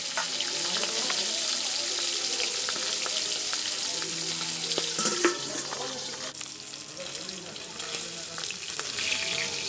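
Pangas fish pieces sizzling as they fry in mustard oil in a metal wok, a steady hiss, with a sharp knock about five seconds in.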